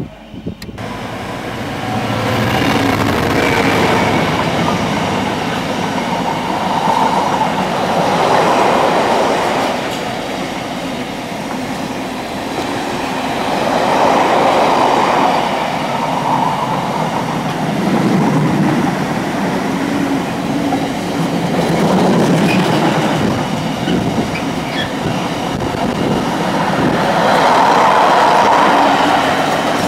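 Container freight train's wagons rolling past close by: a continuous rumble of steel wheels on the rails that swells and eases every few seconds.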